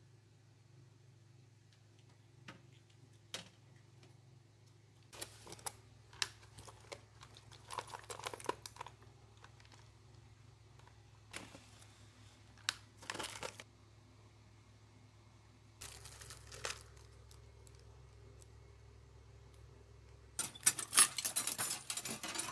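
Scattered clicks and crinkling, rustling handling noises, over a faint steady low hum; a dense, louder stretch of crackling rustle comes near the end.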